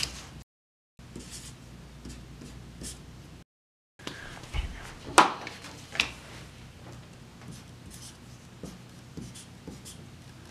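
Paper postcards being handled and set down on a wooden surface, with two sharp taps about five and six seconds in, then a pen scratching out letters on a card in short strokes. The sound drops out completely twice, briefly, near the start.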